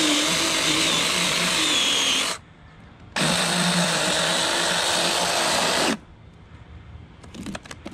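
Taranzy battery-powered mini chainsaw running in two bursts of about three seconds each, its chain cutting into a pumpkin's wall. It stops about six seconds in, leaving a few faint clicks.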